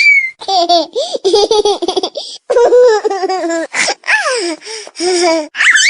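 A ringtone of high-pitched laughter, in bursts with falling pitch, playing on a loop that repeats about every six seconds.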